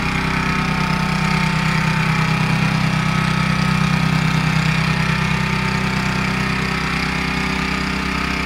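Walk-behind snowblower engine running steadily as the machine clears deep snow and throws it out of its chute.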